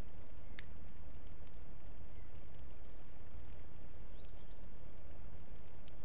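Steady outdoor background with a low rumble, likely wind on the microphone, and a few faint clicks, including one about half a second in and one near the end.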